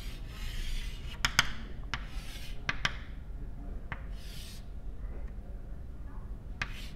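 Chalk on a chalkboard as a diagram is drawn: short scratchy strokes, with sharp taps where the chalk strikes the board.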